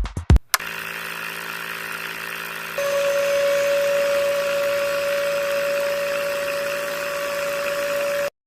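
Small motor running steadily, with a louder high whine joining about three seconds in; the sound cuts off suddenly near the end.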